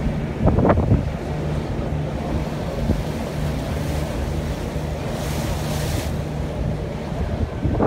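Tour boat's engine humming steadily under wind blowing across the microphone and water rushing past the hull, with a louder gust about half a second in and a brief hiss about five seconds in.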